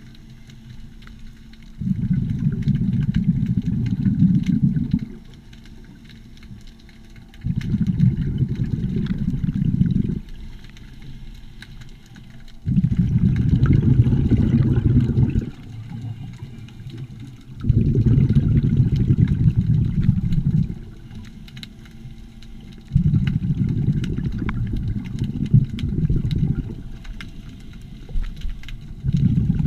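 Scuba diver's exhalations through the regulator heard underwater: bursts of bubbles rumbling past the camera housing for two to three seconds at a time, about every five seconds, with a faint steady hum between breaths.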